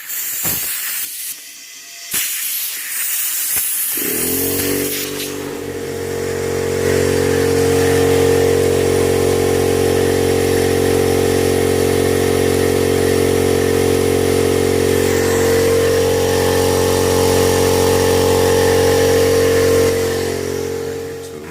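Compressed air hissing, with a few clicks, then a 17-gallon electric air compressor starts about four seconds in and runs steadily, filling an extra 12-gallon tank, before cutting off near the end.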